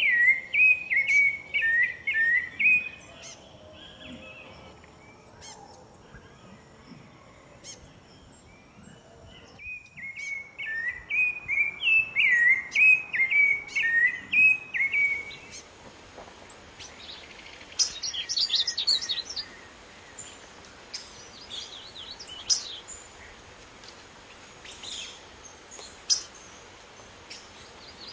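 Birds singing. One bird gives a rapid run of repeated falling whistled notes at the start, pauses, and repeats the run from about ten to fifteen seconds in. After that, scattered higher, sharper chirps from other birds follow.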